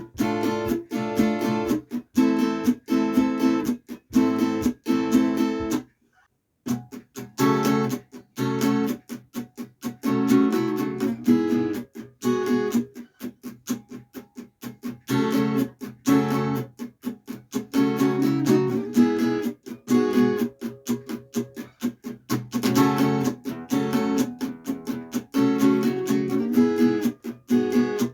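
Kremona Zornitsa acoustic guitar strummed in a quick rhythm of chords. The playing stops briefly about six seconds in, then resumes with lighter strokes that build back up to full strumming.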